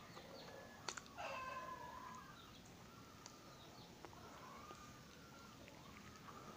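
Faint birds calling in the background: short high chirps scattered through, and one longer drawn-out call about a second in, just after a sharp click.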